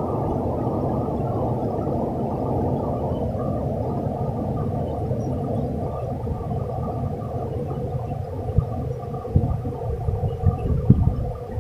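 Steady, muffled rush of a fast river running over rocks and rapids. In the last few seconds there are irregular low bumps and knocks of handling right at the microphone, the loudest near the end.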